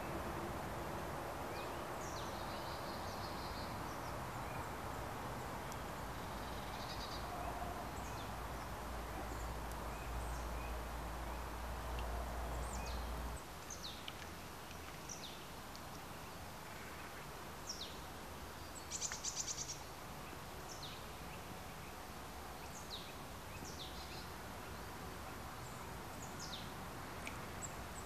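Small birds giving thin, high, down-slurred call notes every second or two over the soft wash of a stream, with a short fast trill about 19 seconds in. A low rumble under it drops away about halfway through.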